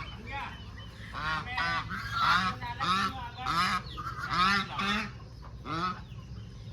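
Geese honking: a run of short, repeated honks, several close together and then spaced out, with a short gap before the last one.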